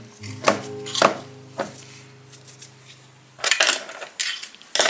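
Sharp metallic clicks and taps, about six, as small steel parts of an antique sewing machine are handled and fitted against its cast-iron bed, several coming close together near the end. Background music plays under the first part.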